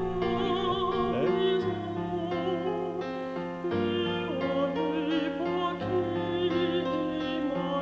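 Background music: a singing voice with wide vibrato in an operatic, classical style over sustained chords that change about every two seconds.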